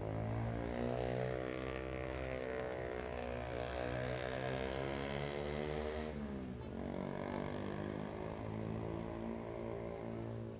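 A vehicle engine running under load, its pitch slowly rising, then dropping sharply about six and a half seconds in, as at a gear change, and climbing again.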